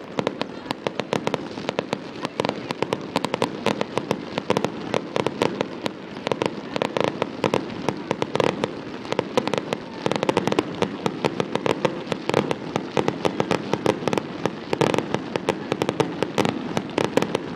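Fireworks going off in a rapid, unbroken barrage of bangs and crackles, several reports a second.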